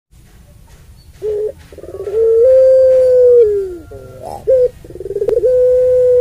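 Puter pelung dove, a domestic ringneck-type dove bred for a long coo, cooing twice: each coo opens with a short note and a quavering lead-in, then holds one long steady note, the first falling away at its end.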